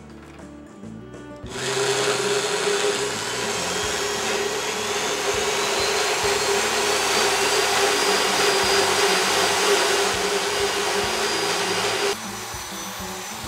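Electric motorized equine dental float (power float) running steadily in a horse's mouth, filing down the teeth during routine floating: a motor sound with a steady hum and a faint high whine. It starts about a second and a half in and drops to a quieter level near the end.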